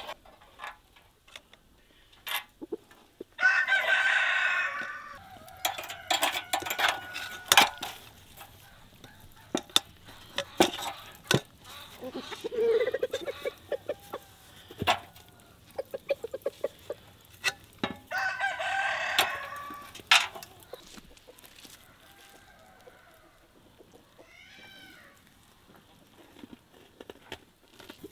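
A rooster crows twice, about 15 seconds apart, and chickens cluck in between. Sharp metallic clicks of steel skewers and hooks knocking against the clay tandoor's rim as the meat is hung inside.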